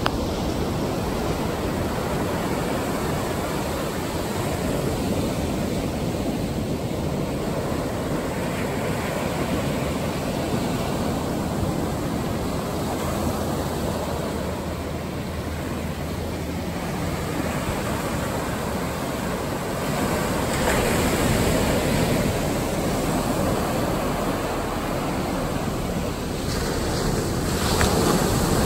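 Ocean surf: small waves breaking at the shoreline and foam washing up the sand in a continuous rush, growing louder about two-thirds of the way through and again near the end as bigger waves break.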